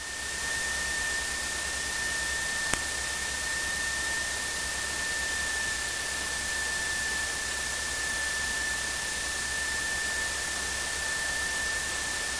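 Steady electronic hiss with a thin, high, unchanging tone: the noise floor of an aircraft headset-intercom recording, with the engine barely coming through. A single short click about three seconds in.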